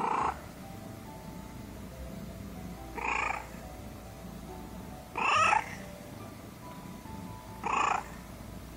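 Domestic cat meowing four times in short calls a couple of seconds apart, the third one loudest, over soft background music.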